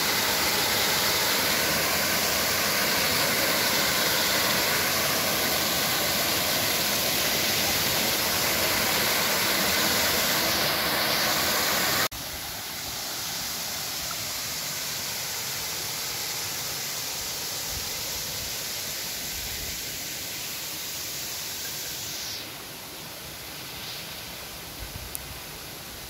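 Small waterfall splashing into a pool, a steady loud rush of water. About halfway through it cuts abruptly to the quieter rush of a shallow stream running over rocks, which drops lower again near the end.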